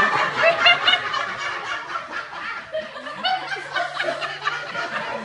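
An audience of several people laughing at a joke's punchline, loudest at first and then slowly tapering into scattered chuckles.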